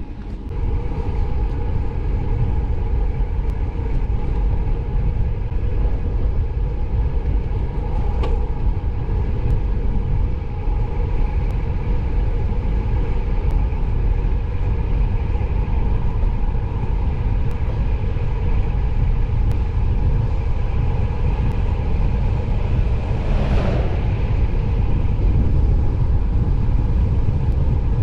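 Steady wind rush over a handlebar-mounted camera's microphone, with road-bike tyres humming on asphalt as the bike rides along.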